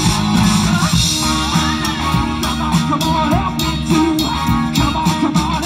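Live rock band playing loudly through a PA: guitars, bass and drums, with a wavering lead melody above.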